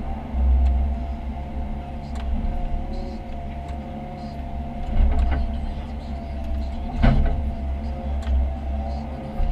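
Komatsu PC138US excavator's diesel engine running under load with a steady whine, while the machine digs, with a few sharp knocks, the loudest about seven seconds in.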